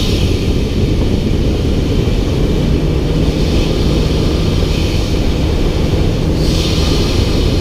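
Nissan GT-R R35's twin-turbo V6 running at a steady engine speed, a loud, even low rumble with no revving.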